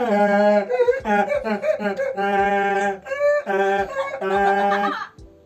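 A person imitating a donkey's bray with their voice: long held notes alternating with quick broken ones, over and over, until it stops about five seconds in.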